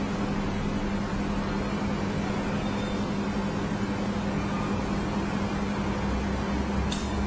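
Steady electrical hum and fan noise from a running mobile laser welding machine, with a single sharp click near the end.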